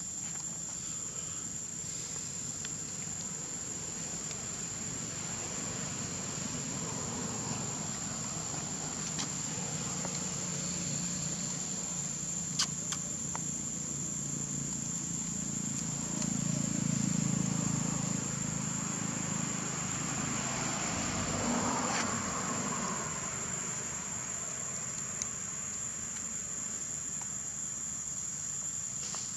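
Steady high-pitched drone of insects. A low rumble swells for a few seconds a little past the middle, and there are a couple of sharp clicks.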